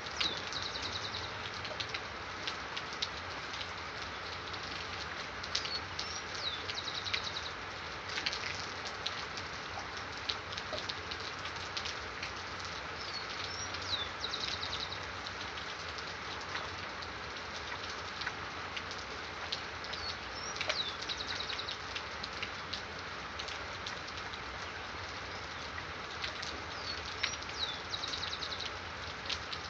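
Steady rain with scattered sharp drop ticks, and a songbird repeating one short song about every seven seconds, five times in all: a quick swooping high note followed by a fast trill.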